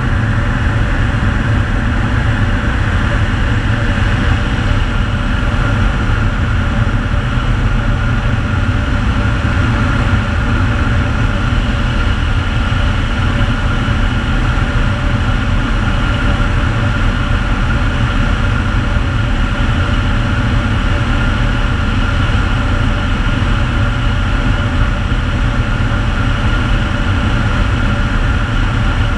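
Air Tractor AT-502XP crop duster's turboprop engine and propeller running steadily in flight, heard from inside the cockpit as a loud, even drone: a low rumble with a steady high whine over it.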